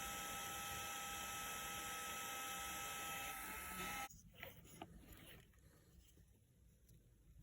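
A 30 mm Ruiapple RA-DC3010 hotend cooling fan (ball and sleeve bearing, 8000 RPM) running at full speed: a steady airy hiss with a thin whine. It cuts off suddenly about four seconds in, and a few faint clicks follow.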